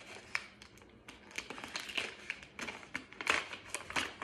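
Paper crinkling and rustling as a homemade paper blind bag is handled and opened by hand, in irregular short crackles.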